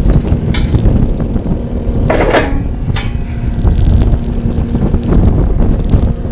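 Cat 259 skid steer's diesel engine running with a steady low rumble, with metal clanks and knocks about half a second in, around two seconds in and again at three seconds.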